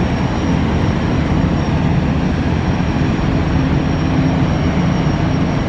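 Steady, loud low drone of ferry engines with a rushing noise over it and a thin, steady high whine.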